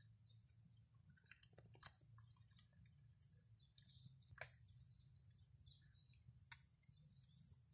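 Near silence: faint outdoor ambience with scattered short bird chirps over a low steady hum.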